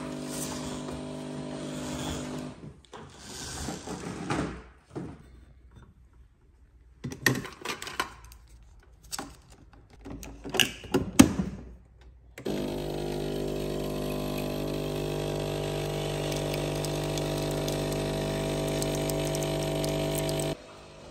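Clicks and knocks as a coffee capsule is loaded and the machine is closed, then a capsule coffee machine's pump runs with a steady buzzing hum for about eight seconds while coffee dispenses, cutting off abruptly near the end.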